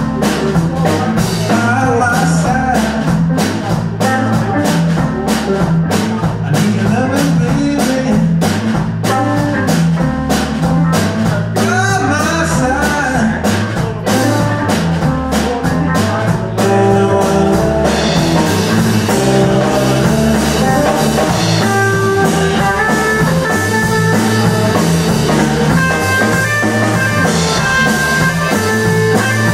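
Live blues-rock band playing: guitar, a stepping bass line and a drum kit, with some singing. About halfway through, the cymbals get busier and the guitar plays held notes that step from one pitch to the next.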